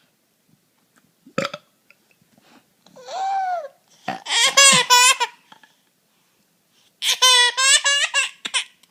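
A baby laughing in two bursts of quick, pulsing giggles, after a short burp-like sound.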